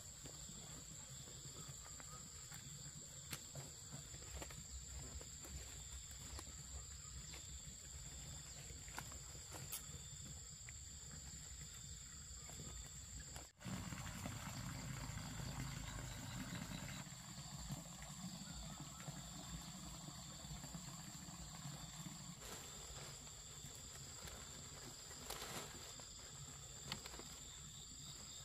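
Quiet outdoor ambience with a steady high-pitched insect drone and faint clicks and rustles of palm leaves being handled. From about halfway, a thin stream of water splashes into a pond for several seconds, then stops.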